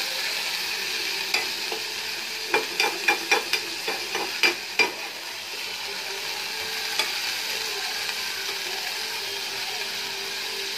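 Chicken and vegetables sizzling steadily in hot oil in a metal pan on high heat. A metal spatula scrapes and knocks against the pan in a quick run of clicks between about one and five seconds in, and once more a little later.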